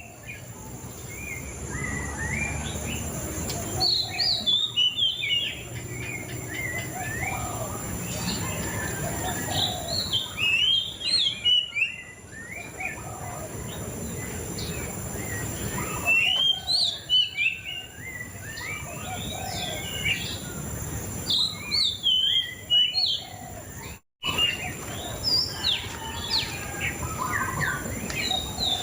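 Murai cacing songbird singing: loud bursts of rapid, sweeping chirps and whistles about every five or six seconds, with softer chirping between them. The sound cuts out for a moment near the end.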